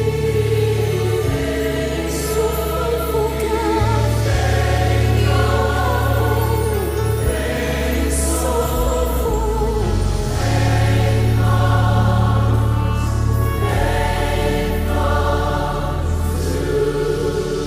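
Choir singing a gospel song over held bass notes that change every few seconds.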